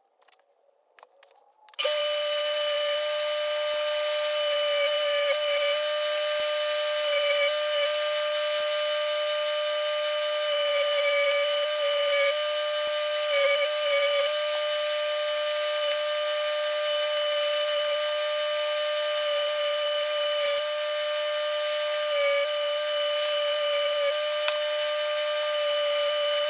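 Electric wire wheel switched on about two seconds in and running steadily with a constant high whine, as rusty bolts are pressed against it to clean them, the pitch sagging briefly now and then under the load.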